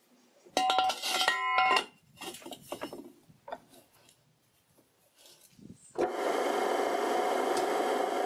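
Old power hacksaw being started on a steel tube: a couple of brief metallic squeals about a second in, then from about six seconds a steady, loud rubbing rasp from the drive as the V-belt slips on its pulley and fails to drive the saw.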